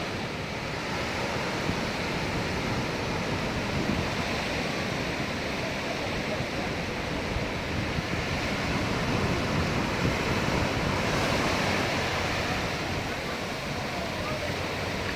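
Steady sea surf washing onto a beach, with wind on the microphone.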